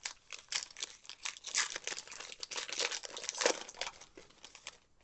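Foil trading-card pack being torn open and its wrapper crinkled by hand: a dense run of crackles that dies away near the end.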